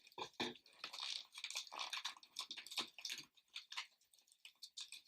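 Packaging crackling and rustling in irregular bursts as it is pulled open by hand.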